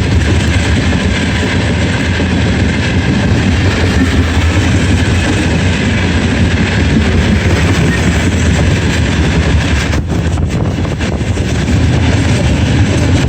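Loud, steady roar of fast-running water from a stream swollen by days of rain.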